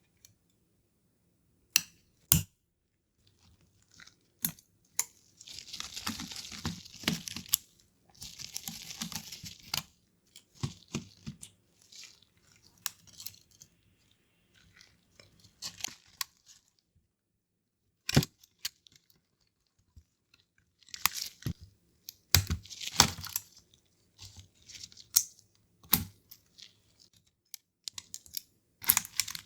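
Small plastic parts and tools clicking and tapping as a Nintendo DSi XL handheld console is taken apart, with two longer stretches of scraping, tearing-like rustle early on and a further cluster of clicks and scrapes later.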